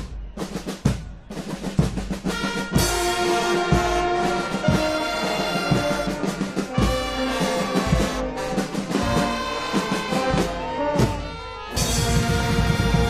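Guggenmusik brass band with trumpets, saxophones and sousaphones playing loud brass chords over drums. Sharp drum hits open, the brass comes in about three seconds in, and after a brief drop near the end the whole band comes back louder.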